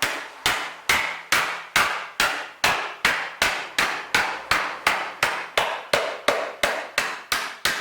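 Hammer striking metal in an even rhythm: about nineteen blows, a little over two a second, each ringing briefly.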